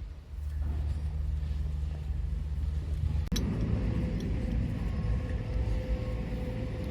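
A vehicle engine running steadily with a low hum; about three seconds in it changes abruptly to a rougher rumble with a steady mid-pitched tone.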